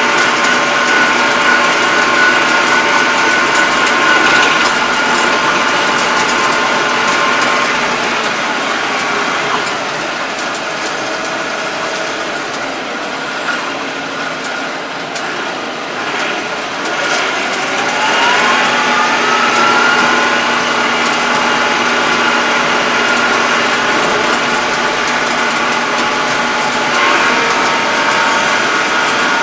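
Diesel engine of a 2020 Yanmar YT333 tractor running steadily under way, heard from inside the closed cab. It eases off for several seconds near the middle, then its pitch rises as it revs back up and holds there.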